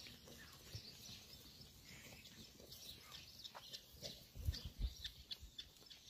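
Flock of White Dorper sheep moving over stony ground, their hooves scuffing and clicking, with faint bird chirps. A few low thumps come about four and a half seconds in.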